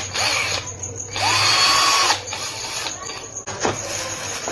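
Electric power drill run briefly: its motor spins up quickly, holds a steady whine for about a second and winds down, after a shorter burst at the start.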